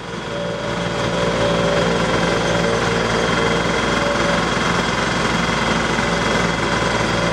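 Engine of construction machinery running steadily, with a rapid, even throb.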